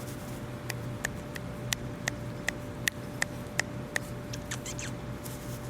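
A young Maltipoo puppy squeaking: a run of about ten short, high-pitched peeps at an even pace of two to three a second, then a few fainter, higher ones.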